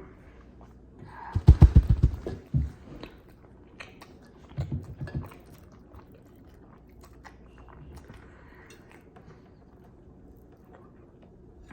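Close mouth sounds of a person eating a big mouthful of instant noodles: a loud run of rapid smacking and chewing about a second and a half in, a shorter run near five seconds, then quieter chewing.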